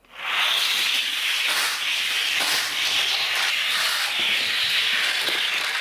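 Toy car rolling down the track, its wheels making a steady rolling hiss.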